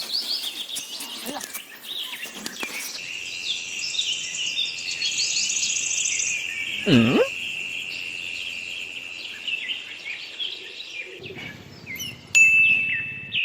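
Birds chirping and calling over a steady high tone that runs through the middle. About seven seconds in, a short low sound dips and rises in pitch, and a clear high tone rings near the end.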